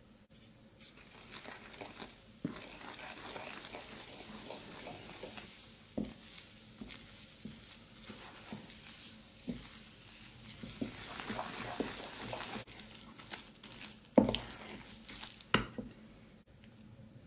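Wooden spoon stirring flour into a runny kefir batter in a ceramic bowl: a steady wet scraping swish with small clicks. Near the end come a few sharp knocks of the spoon against the bowl.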